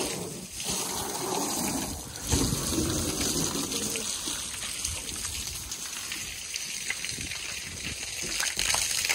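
Water from a garden hose spraying a car's rear bumper and running off it, splashing steadily onto wet pavement.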